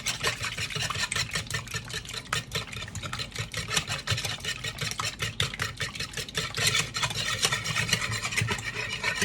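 Wet cake batter ingredients (milk, oil, egg and vanilla) being mixed in a bowl: fast, continuous clicking and scraping against the bowl.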